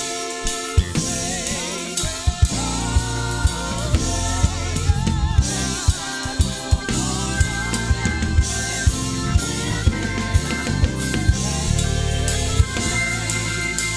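Drum kit played live from the drummer's seat: close, loud kick and snare hits with cymbals, over keyboard and the rest of the band playing worship music.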